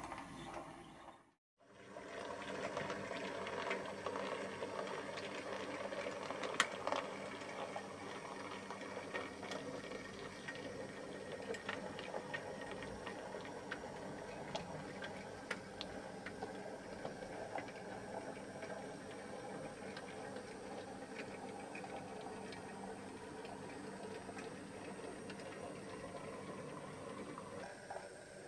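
H0e model C50 narrow-gauge diesel locomotive running on the layout: the steady whirr of its small electric motor and gearing with scattered light clicks of wheels on the rails, one sharper click a few seconds in. The sound drops out briefly about a second and a half in.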